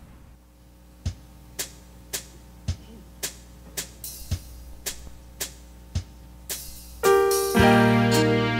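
A count-in of short ticks, about two a second with every third one accented by a low thump, then piano or keyboard chords with a bass line come in near the end as a hymn accompaniment begins.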